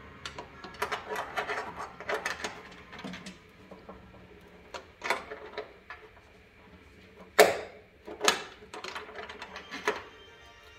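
Irregular metallic clicks and clinks of a wrench tightening the nut on a stainless steel side molding's mounting hardware, with a few sharper knocks in the second half.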